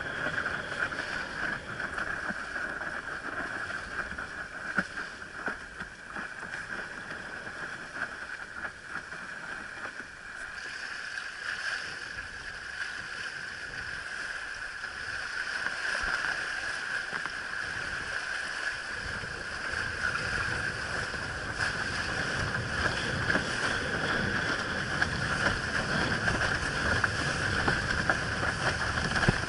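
Water rushing and splashing along a windsurf board's hull as it sails, with wind on the microphone; it gets louder and rougher in the last third.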